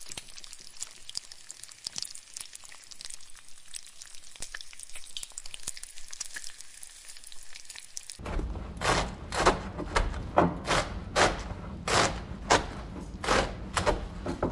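Food sizzling in a pan, a steady crackling hiss. About eight seconds in it gives way suddenly to a steady beat of heavy thuds, about two a second, over a low rumble.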